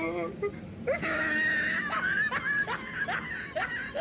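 A woman's high-pitched, wordless cries: a held squeal, then a quick run of short rising whimpers. She is reacting to the burn of very hot chillies.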